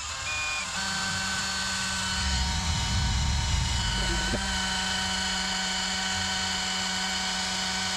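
Electric drill running at a steady speed with an even motor whine, boring a 3/16-inch hole through a drill guide plate into a Chrysler 727 automatic transmission valve body.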